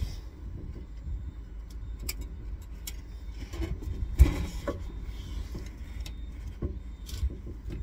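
Clicks and knocks of a street-lamp housing being swung shut and clipped closed by hand, with one sharp knock about four seconds in as the canopy shuts, over a steady low rumble.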